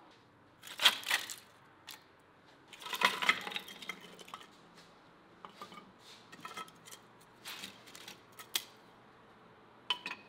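Split wooden kindling sticks clacking against each other and knocking on the stone floor of a wood-fired oven as they are laid down, in a couple of quick clusters about a second and three seconds in, then scattered single knocks.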